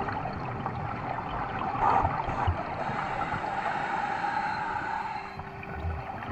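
Underwater ambience at a scuba diver's camera: a steady gurgling, rushing water noise, a little stronger in the middle, with a few soft low thumps.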